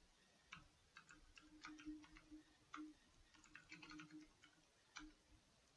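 Faint, irregular clicking of computer keyboard keys being typed, in quick uneven runs.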